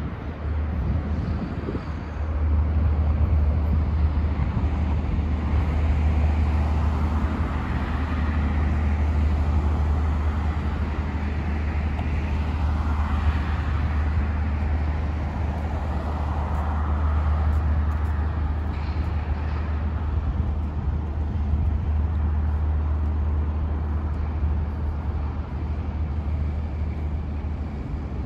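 City road traffic: cars passing on a multi-lane street, their tyre and engine noise swelling and fading several times over a steady low rumble.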